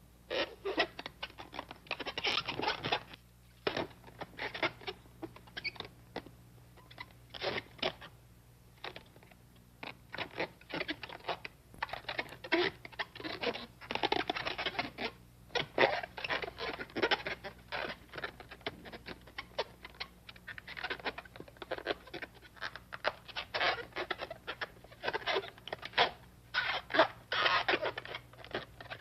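A long skinny modelling balloon being twisted and bent into an animal shape: the rubber squeaks and creaks in irregular runs with short pauses between them.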